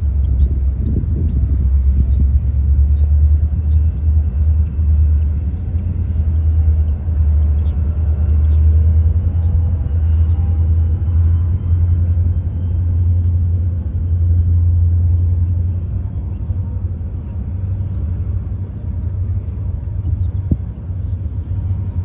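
Steady low rumble of BNSF remote-control diesel locomotives pulling a cut of freight cars through the yard, easing a little in the last few seconds.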